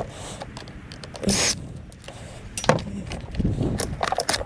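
Hands working over a stripped appliance's metal parts: scattered clinks and knocks, with a short loud scraping rush about a second and a half in and a quick run of clicks near the end.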